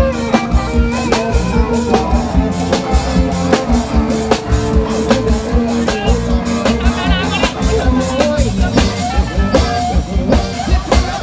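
Thai street brass band (trae wong) playing a lively procession tune: horns holding long notes over a steady drum beat.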